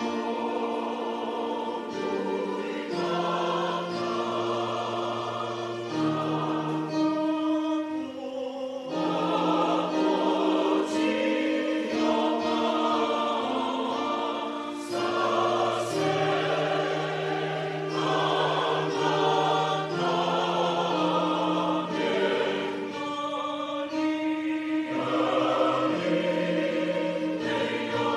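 Church choir singing an anthem in Fijian in several voice parts, holding sustained chords that move together every second or two.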